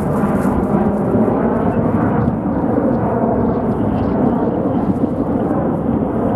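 Jet airliner engines running loud and steady, mixed with strong wind rumbling on the microphone.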